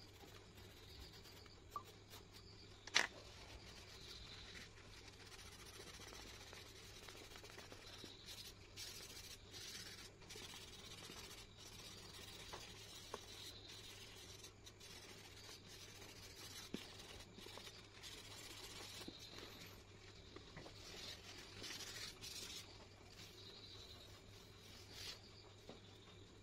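Faint scratching of a coloured pencil on paper and a hand brushing across the sheet, with one sharp click about three seconds in.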